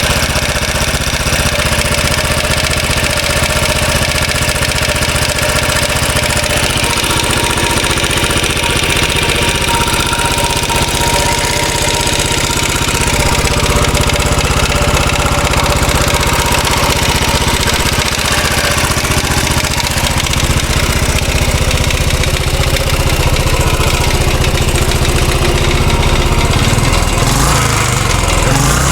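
Royal Enfield Classic 500's air-cooled 499 cc single-cylinder engine idling steadily, carrying an oscillating rattle; the owner thinks of opening the top end to check the tappets and rockers for its cause.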